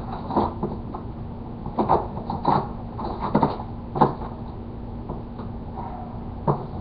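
Irregular clicks and rattles of hands rummaging through a tackle box of small items.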